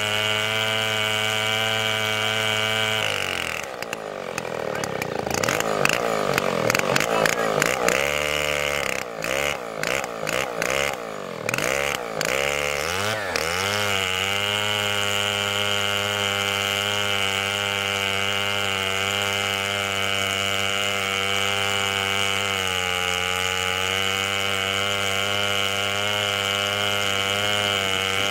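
Yuzhoukee YZ105 105cc two-stroke chainsaw running in a chainsaw mill, cutting a walnut log at a steady high pitch. About three seconds in its pitch starts swinging up and down unevenly, with brief drops, for roughly ten seconds. It then settles back to steady running.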